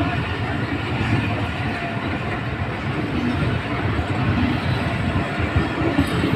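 Pakistan Railways passenger coaches rolling past close by, their wheels rumbling steadily on the rails, with a few sharper knocks near the end.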